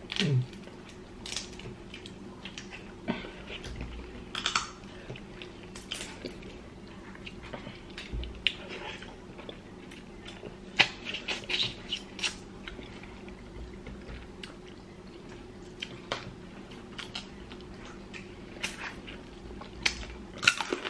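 Close-up eating sounds: boiled blue crab shells being cracked and picked apart by hand, with chewing and irregular sharp clicks and cracks. A faint steady hum runs underneath.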